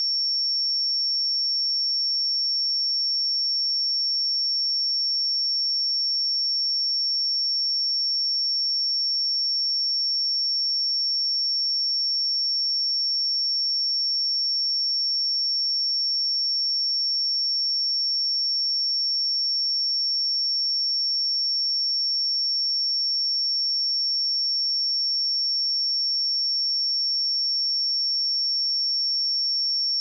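A steady pure sine-wave test tone at 5471 Hz, a single high-pitched note held at constant level with no other sound.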